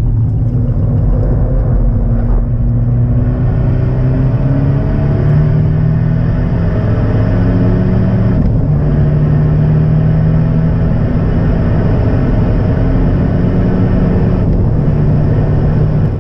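Abarth 124 Spider's turbocharged 1.4-litre four-cylinder heard from inside the cabin while driven hard on track, its pitch climbing and falling with short breaks about eight and fourteen and a half seconds in, over tyre and wind noise.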